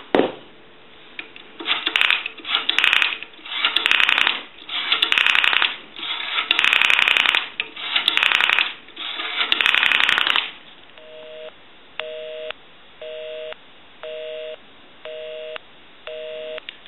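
Rotary dial of a Northern Electric 3-slot payphone being dialed seven times, each digit a burst of whirring clicks as the dial spins back. Then a busy signal comes down the line, a two-tone beep repeating about once a second, six times.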